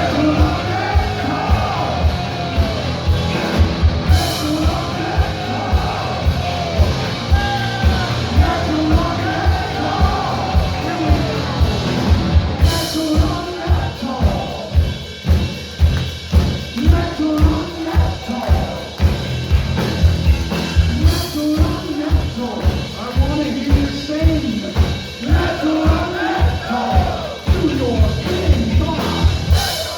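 Live heavy metal band playing: a sung vocal line over distorted guitars and bass, driven by a steady kick drum beat, with a crash cymbal hit every eight seconds or so.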